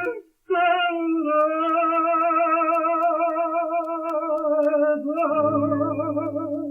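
A male tango singer holds one long note with vibrato, the last word of the verse, on a 1931 78 rpm shellac recording. Low guitar notes come in under it about five seconds in.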